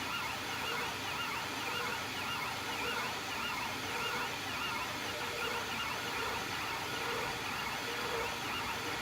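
Anycubic Kossel delta 3D printer's stepper motors whining while printing, the pitch gliding up and down over and over, over a steady hiss.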